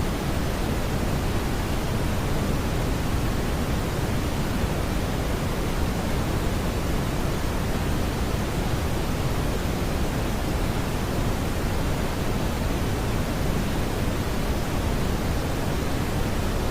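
Synthetic smoothed brown noise: a steady, even rushing hiss weighted toward the low end, without any change or added tones.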